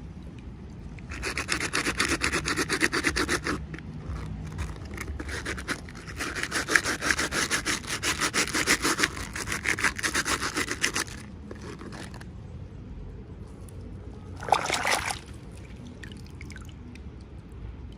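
Rapid back-and-forth rubbing and scraping strokes, as from hands working at packaging, in two runs of several seconds each, then one short burst about three seconds before the end.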